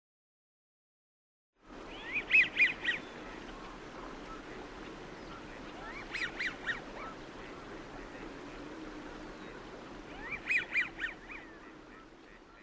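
American wigeon whistling, starting about two seconds in: three bursts, each a few quick whistled notes rising and falling in pitch, over a steady low murmur from the flock.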